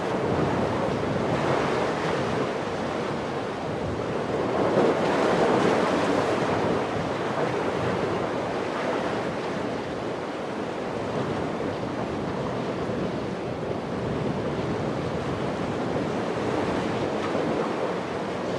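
Ocean surf breaking and rushing in rough water, with wind buffeting the microphone; the surf swells louder about five seconds in.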